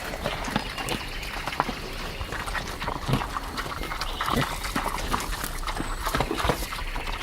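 Pigs grunting in short, irregular grunts, mixed with many small clicks and scuffling noises.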